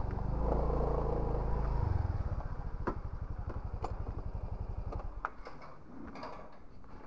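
Motorcycle engine idling with a steady low beat. It drops in level about two seconds in and fades away by about five seconds. A few sharp clicks fall in between.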